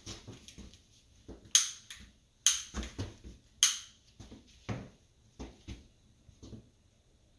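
Butane utility lighter's trigger clicking three times, sharp spark-igniter snaps about a second apart, as it is fired to light the marshmallow. Softer knocks and rustling from handling and shuffling come between.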